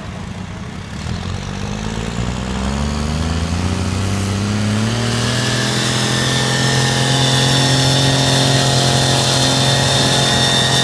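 Pulling tractor's engine revving up over several seconds, then held steady at high revs and getting louder as it works under load.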